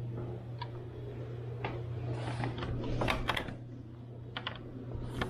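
Storm door's latch handle being worked and the door pushed open: a string of light, irregular clicks and knocks. A steady low hum runs underneath.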